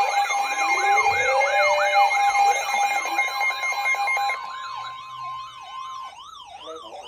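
Electronic siren alarms of weather alert radios sounding together: a wail sweeping up and down about two to three times a second over steady alarm tones. The steady tones cut off about four seconds in, and the sound grows quieter toward the end.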